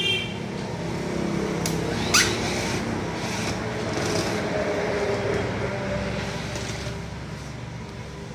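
Road traffic noise with vehicle engines running, a short horn toot at the very start and a sharp rising squeak about two seconds in.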